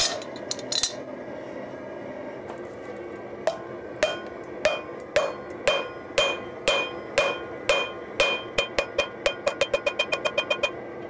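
Hand hammer forging red-hot leaf-spring steel on an anvil, each blow ringing. One strike comes right at the start, then the blows begin about three and a half seconds in at around two a second and quicken to three or four a second near the end.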